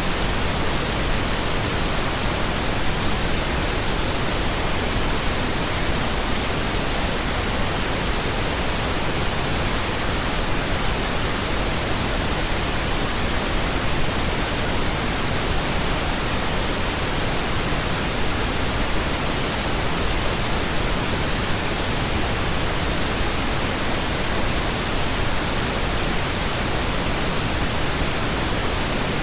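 Steady pink noise: an even, unchanging hiss spread across the whole range of pitch, with no change in level.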